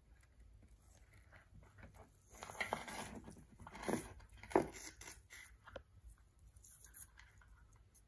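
Jute twine being threaded through a drilled hole in a plastic bowl and pulled through by hand: irregular rough rustling and scraping, with a few louder bursts in the middle.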